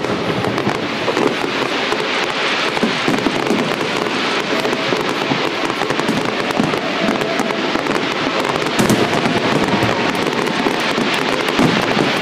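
Fireworks display: a dense, unbroken barrage of many overlapping shell bursts and crackles, with a few heavier bangs standing out near the start, about nine seconds in and near the end.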